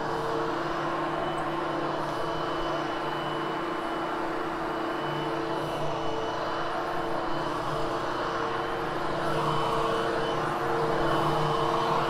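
Upright vacuum cleaner running steadily as it is pushed over cut-pile polyester carpet: an even motor hum and whine over the rush of suction and the brush roll. It grooms the pile of freshly cleaned carpet and gets a little louder near the end.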